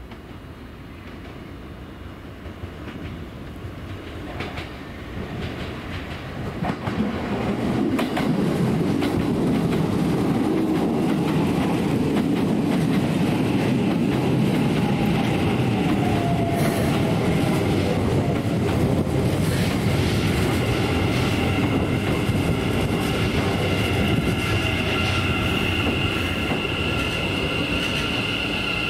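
Keikyu electric train arriving at a terminus platform and slowing to a stop: rail noise grows louder over the first several seconds as it approaches and draws alongside. A motor whine falls in pitch as it brakes, and a steady high-pitched squeal joins in about twenty seconds in.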